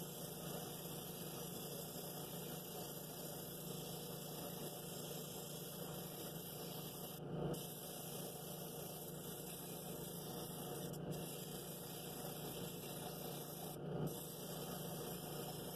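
Drill press spinning a 2-inch flexible foam sanding pad with a 60-grit disc, a steady motor hum with the rasp of the coarse paper on the cherry wood of a bowl's outside wall. It swells briefly about seven and fourteen seconds in.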